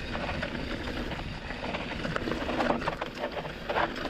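Canyon Torque full-suspension mountain bike rolling down a dry dirt trail: tyres crunching over dirt and roots, with irregular rattles and knocks from the bike over the bumps.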